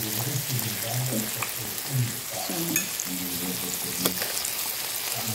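Minced-beef patties, mushrooms and chicken sizzling steadily in oil on a raclette grill plate. Quiet voices murmur underneath, and there are a few sharp clicks, the clearest about four seconds in.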